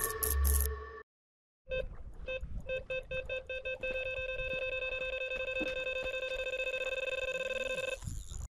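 Electronic carp-fishing bite alarm sounding: single beeps at first that quickly come faster and run together into one continuous high tone, the sign of a fish taking line in a run.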